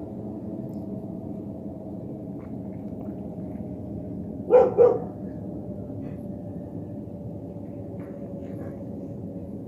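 A dog barks twice in quick succession about halfway through, over a steady low rumble that carries a faint tone slowly falling in pitch.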